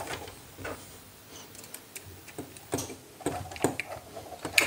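Irregular small clicks and taps of hands handling a plastic bulb holder while a wire is fitted into its brass terminal and a screwdriver is set on the terminal screw, with a sharper click near the end.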